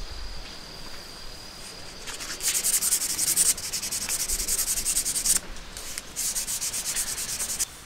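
Waterproof #320 sandpaper rubbed quickly back and forth along a hand-carved wooden chopstick, smoothing it after rough carving. The strokes come in two fast, even spells with a short break between them.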